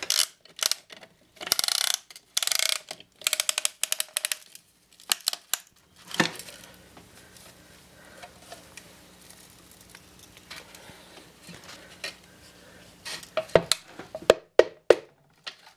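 Piston ring compressor and piston being worked into a small engine's cylinder bore. Several bursts of fast metallic ratcheting clicks come first, then a single knock. Near the end comes a quick run of sharp taps from a hammer handle on the piston, driving it down past a ring that is not compressed enough and still catches.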